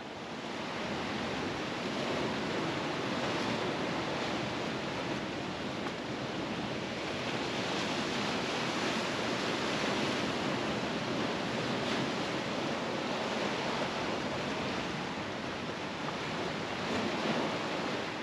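Seawater surging and washing over shoreline rocks, a steady hiss of surf with gentle swells.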